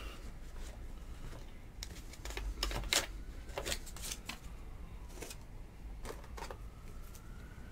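Light, scattered clicks and taps of trading cards and plastic card holders being handled on a table, about eight in a few seconds. Near the end a faint siren starts to rise and fall.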